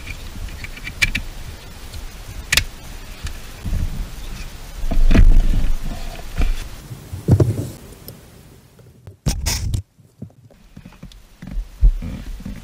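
Hands working on the wiring and plastic connectors under a car seat: scattered sharp clicks and rustling, with heavier low thumps about five and seven seconds in.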